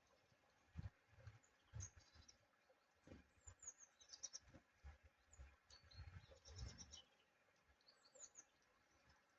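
Faint, scattered high chirps and tweets of small garden birds, clustered in the second half, over irregular low dull thumps.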